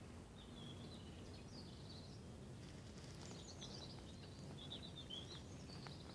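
Faint high-pitched chirps and twitters from a small animal, in clusters over a low steady background noise, with a few faint clicks.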